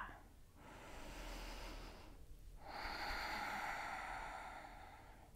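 A woman taking a slow, deep breath in and out: two long breaths, the second longer and louder.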